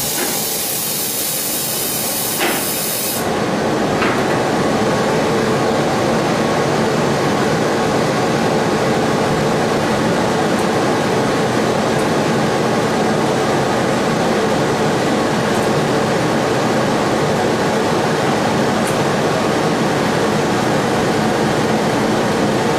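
A 130 W laser cutting machine running while it cuts carpet, giving a steady, even rushing machine noise. About three seconds in, a high hiss drops away and the rushing becomes a little louder, then holds steady.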